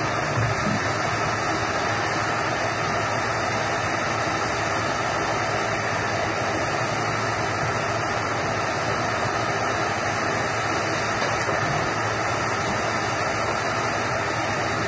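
Heavy forestry log-processing machine with a grapple arm and circular slasher saw, running with a steady, even mechanical din and no distinct cuts or knocks.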